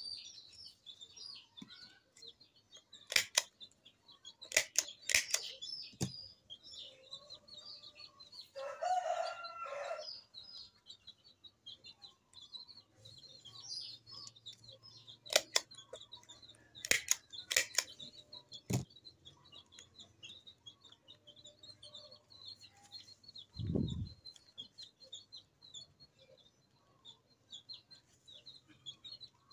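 Fresh banana leaves being folded and fastened by hand, with several sharp clicks, some in pairs. A bird call about nine seconds in, over high, steady chirping, and a low thump near the end.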